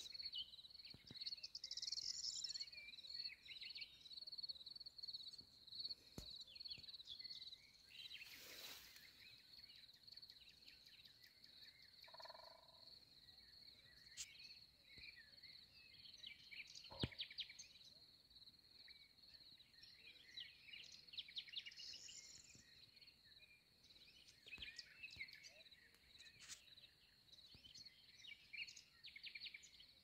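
Faint outdoor ambience of a spring meadow: birds chirping and singing over a steady high-pitched insect trill. A brief rustle comes about a third of the way in, and there are two short clicks, the louder a little past the middle.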